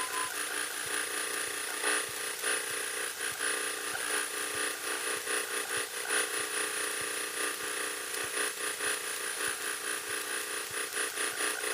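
Light training airplane's piston engine running steadily at low taxi power, heard through the cockpit intercom as an even hum with a constant high whine.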